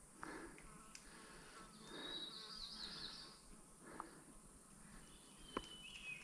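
Faint sounds of a mountain bike ride on a dirt trail: the rider's breathing in soft puffs every second or two and a few light clicks from the bike. A high, fast trill sounds from about two seconds in for a second or so, with a shorter high call near the end.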